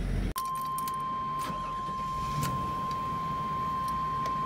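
A steady, high-pitched electronic warning buzzer sounds in a motorhome's cab, starting about half a second in. Light clicks and key jangles sit over it, with a sharp click near the end.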